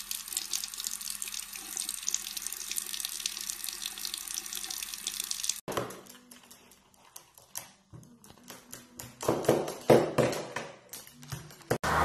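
Tap water running steadily from a bathroom faucet into a sink, cutting off abruptly about six seconds in. It is followed by a scatter of light clicks and knocks, a few of them louder.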